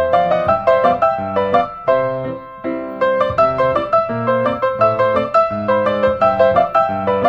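Background music: a piano playing a quick, steady run of notes, several a second.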